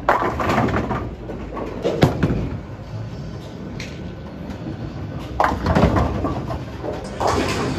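Bowling balls striking pins, with the pins clattering in several sudden crashes: near the start, about two seconds in, around six seconds and near the end. A steady low rumble runs underneath.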